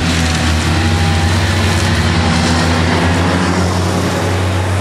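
Avant compact loader with its front-mounted 1500 rotary mower attachment cutting grass. The engine runs steadily as a constant low hum, with a dense rushing noise over it from the spinning mower deck.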